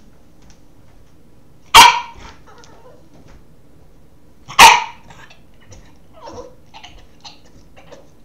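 Boston terrier puppy giving two sharp, loud barks about three seconds apart, with a few faint short sounds between and after. These are play barks from a puppy wanting to play.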